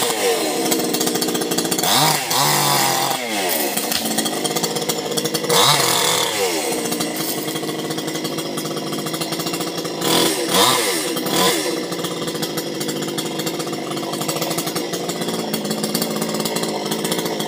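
Small two-stroke chainsaw running steadily, revved up and let back down several times, about two, five and ten seconds in.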